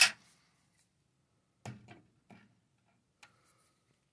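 Scattered metallic clicks and light knocks as a fluorescent light fixture's ballast is unbolted and handled in its sheet-metal housing. The sharpest click comes right at the start, with softer knocks about two seconds in and a small click near the end.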